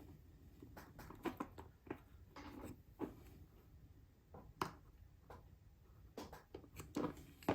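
Faint scattered taps and clicks of a small model locomotive chassis and its parts being handled on a workbench, with a few sharper clicks about a second in and near the end.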